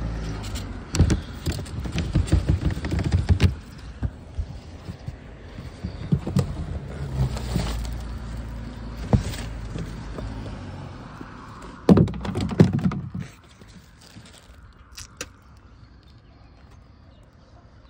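Garbage being crushed and stuffed down into a wheeled trash can with a hiking boot: irregular bursts of crunching, rustling and knocking, with the loudest thuds about two-thirds of the way in and quieter rustling after.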